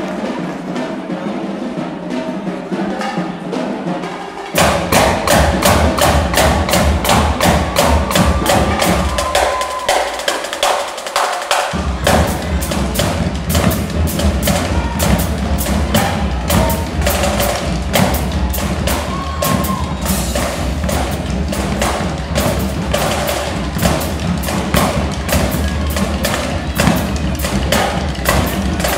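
High school marching drumline playing a cadence, a dense, steady stream of drum strokes. The opening few seconds are lighter, without bass drums; the bass drums come in about four and a half seconds in, drop out briefly around ten seconds, and return about twelve seconds in.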